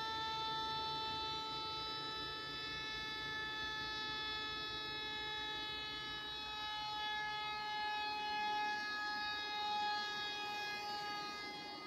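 Steady high mechanical whine with several overtones, its pitch sinking slowly, from the machinery of a chassis-dynamometer cell. A low rumble beneath it fades away about eight seconds in.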